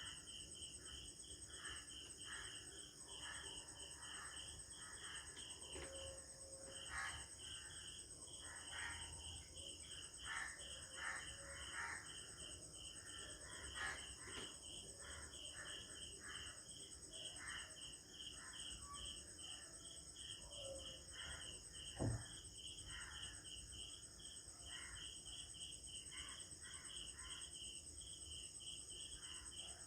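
Crickets and other insects chirping: a steady high-pitched trill under short, evenly repeated chirps about three a second, with irregular lower calls mixed in. One sharp knock stands out about two-thirds of the way through.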